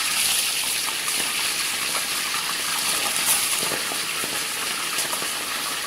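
Pandan-leaf-wrapped chicken parcels frying in hot oil, a steady sizzle with crackle and a few sharp pops. The water left on the parcels from steaming makes the oil spit.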